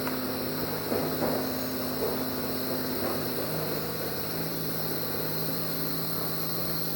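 Steady low drone of a distant engine, its pitch shifting slightly about three seconds in, under a constant high hum of tropical insects.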